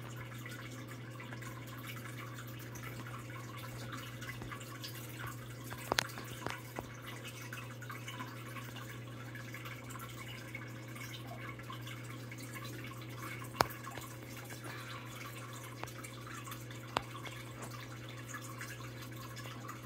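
Aquarium water trickling and dripping over a steady low hum, with a few sharp drips standing out, the loudest about two-thirds of the way through.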